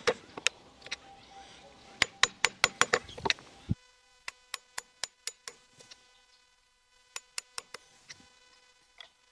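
Hammer striking the handle of a chisel that is chopping a mortise into a hardwood block: sharp taps in quick runs of four to six, with short pauses between the runs.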